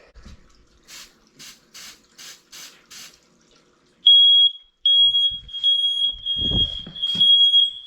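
Canned smoke-test spray hisses in six short bursts. About four seconds in, a smoke alarm set off by the test smoke starts a loud, high-pitched steady tone that briefly breaks at first. A dull thump comes about six and a half seconds in.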